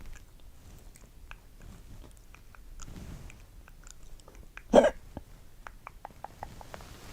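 A girl's hiccup, one short loud hic about five seconds in, against soft scattered clicks. Shortly after the hiccup comes a quick run of small clicks, about five a second.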